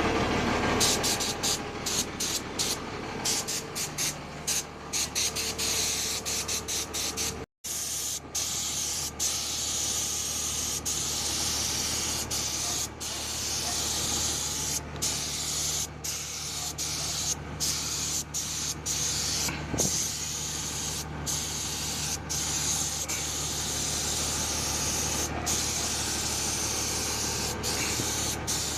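Air-powered paint spray gun hissing in repeated long bursts with short breaks as the trigger is pulled and released. It runs on compressed air from the truck's air tanks, with the truck engine idling steadily underneath.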